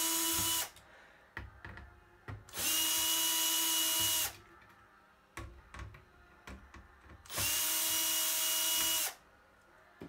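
Cordless drill-driver spinning out small laptop screws in three short runs, each a steady whir that rises briefly as it spins up. The first run stops just after the start and the other two last about one and a half to two seconds each. Small clicks and knocks of handling fall between the runs.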